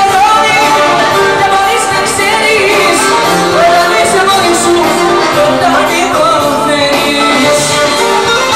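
Live Greek band music: a woman sings into a microphone over violin, electric bass and drums.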